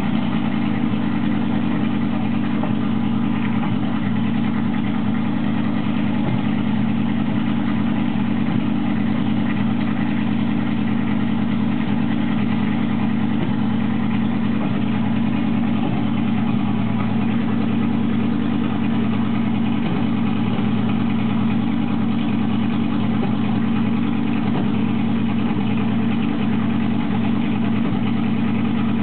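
Triumph TR8 race car's V8 engine idling steadily while it warms up, with no revving.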